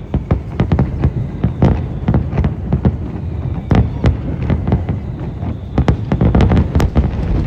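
Fireworks display going off in a rapid barrage: several sharp bangs and crackles a second over a continuous low rumble of booms.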